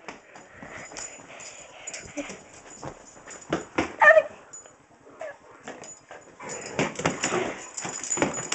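Small dog whimpering, with a short high whine about four seconds in, amid rustling and knocks close to the microphone.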